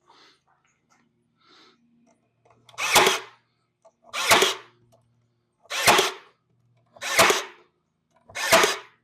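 Ryobi cordless stapler firing five times into cedar fence pickets, each shot a short motor whirr ending in a snap, about a second and a half apart from about three seconds in.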